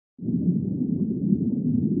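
Low rumbling water noise of the kind heard underwater, as in an aquarium tank. It starts suddenly about a quarter second in and stays steady, with faint small crackles in it.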